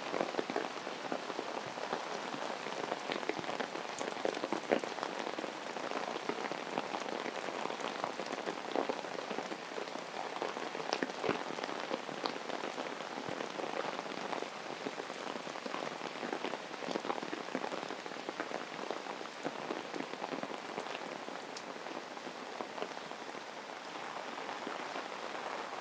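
Heavy tropical rain falling steadily: a dense, even hiss of spatter with many sharp individual drop hits.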